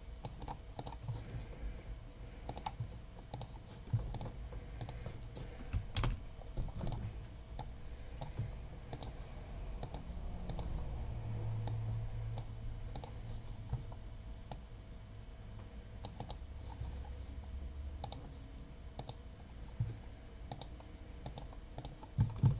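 Faint, irregular clicks of a computer mouse and keyboard, a few presses every second or so.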